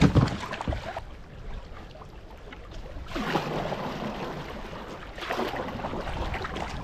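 Canoe paddled through calm water: water washing along the hull, swelling with each paddle stroke, about two seconds apart. There are a few sharp knocks at the start.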